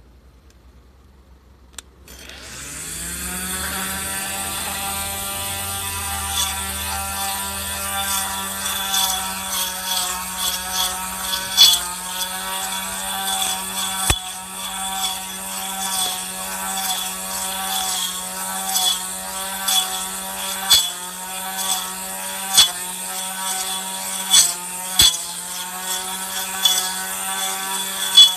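Handheld electric grass trimmer with a toothed disc blade: a click about two seconds in, then the motor spins up to a steady high whine. From about six seconds on, irregular ticks and sharp clacks come as the spinning disc strikes weeds and soil.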